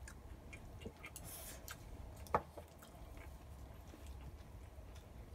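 Quiet mealtime sounds: faint clicks of chopsticks against rice bowls and soft chewing, with one sharper clink a little over two seconds in, over a low steady hum.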